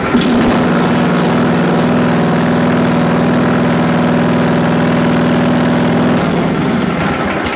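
Riding lawn mower's engine running steadily soon after a cold start, then slowing about six seconds in and shutting off at the end.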